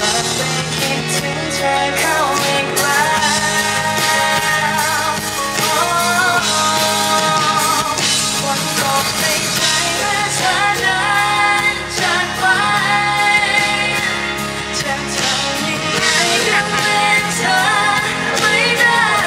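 A woman singing a Thai pop ballad live, with guitar accompaniment.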